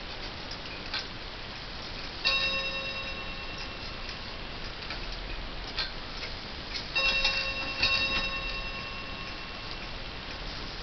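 Montgomery Wards schoolhouse chime clock ticking, with its chime struck on the same note three times: once about two seconds in, then twice close together around seven and eight seconds in, each stroke ringing and fading.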